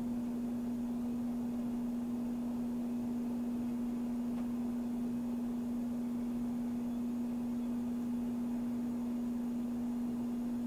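A steady low hum: one unchanging tone over a faint hiss.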